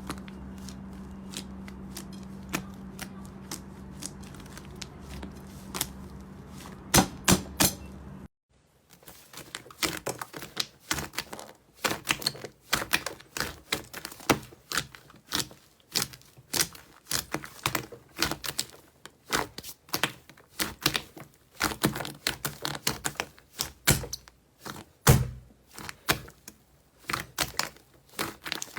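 Slime being squeezed and poked by hand, making irregular sticky clicks and pops. For the first eight seconds a steady low hum runs under a few clicks; then the sound cuts to louder, denser clicking.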